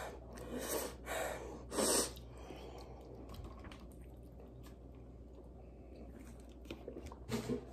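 A person takes two sharp, hissing breaths about a second apart, the second one louder, against a mouth burning from spicy noodles. A few more short breaths come near the end.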